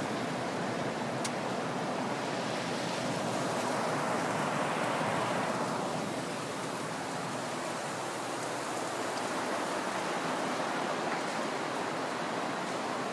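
Heavy rain pouring down in a storm, a steady hiss that swells and eases about three to six seconds in.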